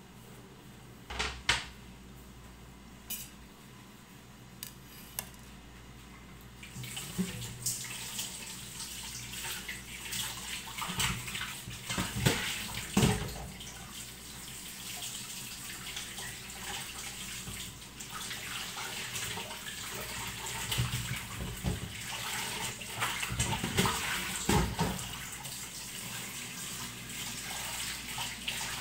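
A few light clicks and knocks, then about seven seconds in a tap is turned on and water runs steadily, with dishes and pots clattering in a sink.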